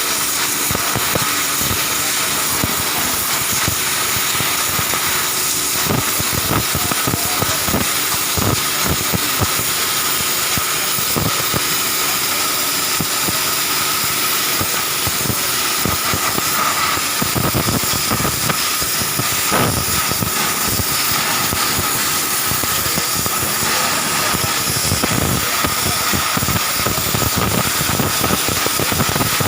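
High-pressure washer running: a loud, steady hiss of the water jet over the steady hum of its pump motor, the jet stripping paint.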